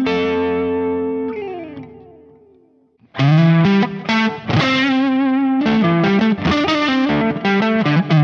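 Electric guitar, a Telecaster with Dreamsongs Vintage '50s pickups, played through an amp with crunchy overdrive. A held distorted chord drops in pitch and fades out, then about three seconds in a new riff of picked notes and chords starts.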